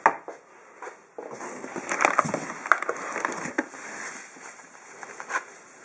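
Packaging being handled while unpacking a cardboard box: crinkling plastic wrap and cardboard, with a few sharp clicks and knocks.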